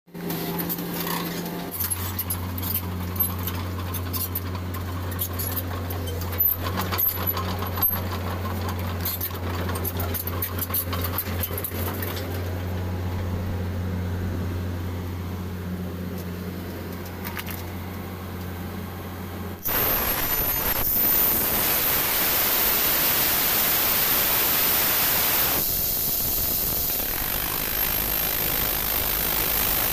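Tracked rock-drilling rig running with a steady low engine hum and scattered clicks. About two-thirds of the way through, a sudden loud, even rushing noise takes over as the drill starts working at the ground.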